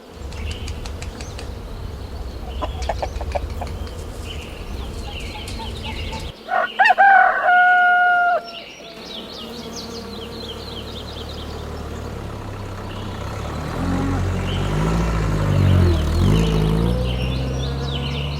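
A rooster crowing once, loudly, about six seconds in, ending in one long held note, over a steady low rumble. Near the end a lower, drawn-out call rises and falls.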